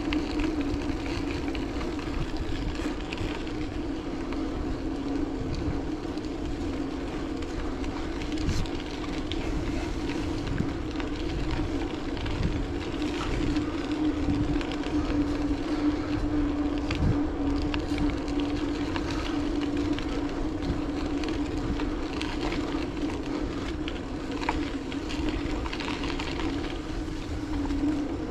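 Riding noise of a bicycle rolling along a path: a steady low hum over an uneven rumble, with a few small knocks and clicks.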